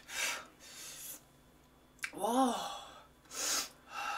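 A woman's sharp, hissing breaths in and out through the mouth, with a brief voiced 'mm' rising and falling about two seconds in: a reaction to the heat of very spicy chicken feet.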